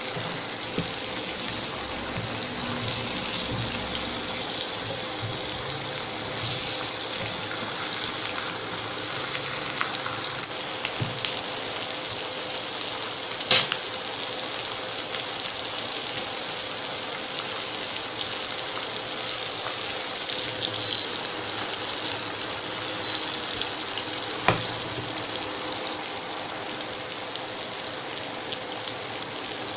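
Pork steaks sizzling in butter and garlic in a frying pan, a steady frying hiss. Two sharp clicks cut through it, one about halfway through and another some ten seconds later.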